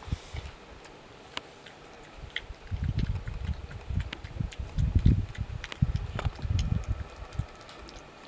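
European badger munching at a feeding tray, with irregular sharp crunching clicks and bursts of louder chewing about three seconds in and again from about five to seven seconds in.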